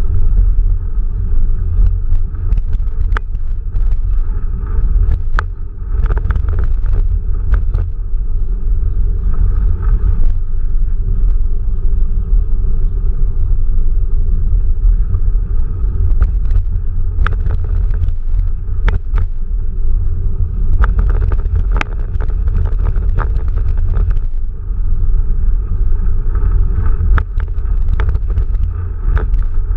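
Quest velomobile rolling along a paved path: a steady, deep rolling noise carried through its fibreglass shell, with scattered sharp clicks throughout.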